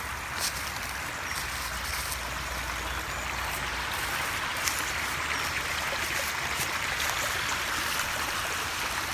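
Rushing water of a stream and waterfall, a steady hiss that grows gradually louder.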